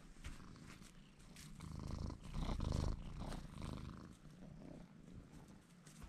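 Domestic cat purring, swelling to its loudest about two to three seconds in, then easing off, with a few faint clicks.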